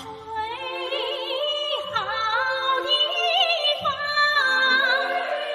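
Music with a singing voice holding long, wavering notes over accompaniment.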